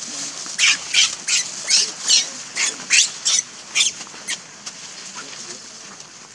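A baby macaque squealing in a quick run of about ten short, high-pitched cries, roughly three a second, while an adult handles it; the cries stop about four and a half seconds in.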